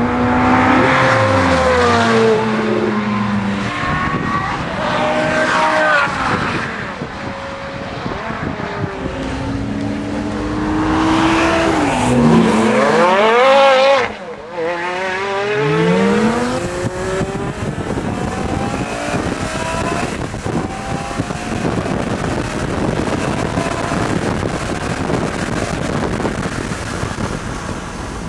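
Several sports car engines revving hard as cars accelerate past one after another, the pitch climbing through the gears and dropping as each goes by. The sound cuts off suddenly about halfway through and picks up again with another engine and a noisier rush.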